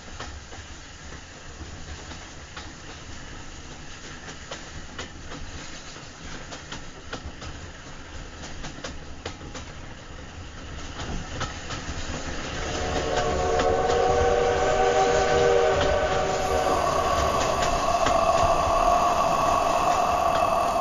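Rumble of a train in motion, with the clickety-clack of wheels over rail joints. About two-thirds of the way through, a louder held chord of several steady tones swells in and stays to the end.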